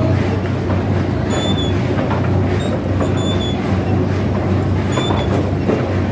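Clay roof tile factory machinery running steadily with a loud low hum, with a short high squeak that repeats about every second and a half to two seconds.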